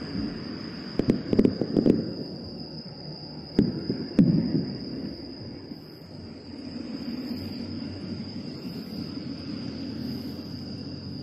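Distant aerial fireworks shells bursting: a quick cluster of sharp bangs in the first two seconds and two more around four seconds in. Under them a steady high insect trill carries on.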